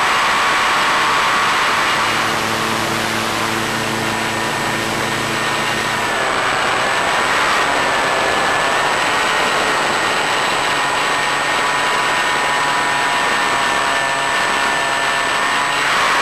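Electric motor and propeller of an Easystar model plane whining steadily under a thick hiss. The whine dips in pitch and comes back up about seven seconds in.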